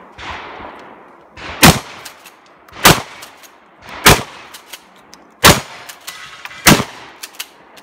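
Shotgun fired five times in steady succession, about a second and a quarter apart, with lighter clicks between the shots.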